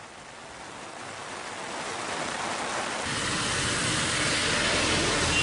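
Heavy rain pouring down as a steady hiss that grows louder. About three seconds in, the low rumble of motorbikes and scooters on a wet road joins it.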